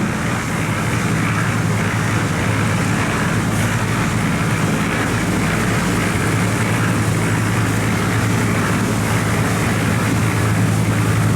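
Diesel engine of a cargo barge running hard as it pushes upstream through the bend: a loud, steady low drone that grows slightly louder near the end as the barge comes closer.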